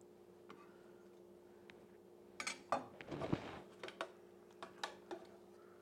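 A spoon stirring cheese sauce in a stainless steel saucepan. About two seconds in it scrapes and clinks against the pan's sides, then taps sharply several times, over a faint steady hum.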